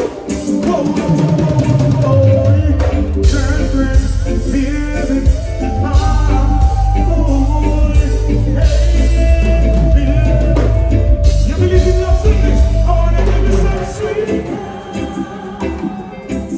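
Live band music with some singing, a heavy bass line coming in about a second in and dropping out near the end.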